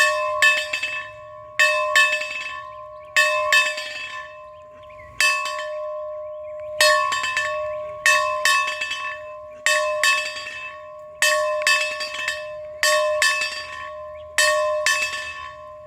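A bell being rung over and over, mostly two quick strokes at a time, about every one and a half seconds. Each stroke rings on with a clear, steady tone that dies away before the next.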